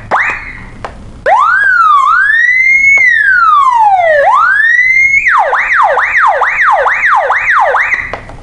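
12-volt electronic motorcycle siren sounding loudly through its horn speaker, switching between tones: after a short rising chirp and a brief lull, a slow wail glides up and down in pitch. About five seconds in it changes to a fast yelp of repeated falling sweeps, three to four a second, which cuts off near the end.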